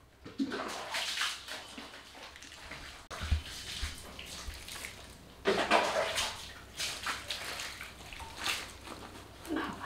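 Water poured from a plastic mug over a golden retriever's shampooed coat, splashing down onto the tiled floor in repeated pours as the soap is rinsed off.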